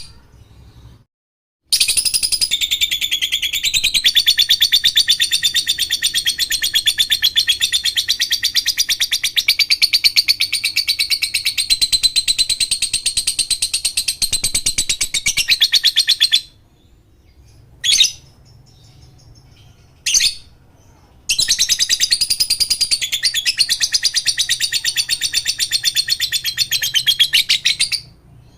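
Lovebird giving its long, fast chattering trill (the 'ngekek' song): one bout of about fifteen seconds, two short chirps, then a second bout of about seven seconds.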